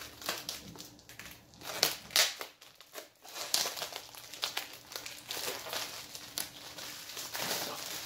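Plastic shrink-wrap film crinkling and crackling as it is cut open and pulled off a boxed book set, in a run of sharp crackles that grows busier in the second half.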